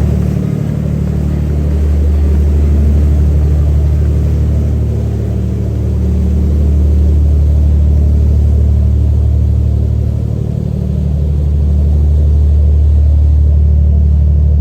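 Engine of a crab-fishing excursion boat running steadily under way, a loud low drone that swells and eases slightly a couple of times.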